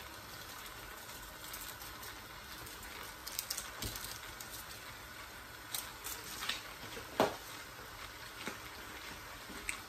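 Pot of okra soup simmering on a gas stove: a steady, low bubbling hiss, with a few small clicks and taps, the sharpest about seven seconds in.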